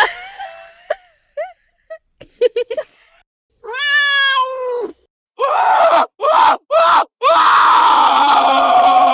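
A run of separate short meme sound effects: a few quick squeaks, then a single cat-like meow about four seconds in, three short cries, and a long, loud, harsh cry for the last two seconds.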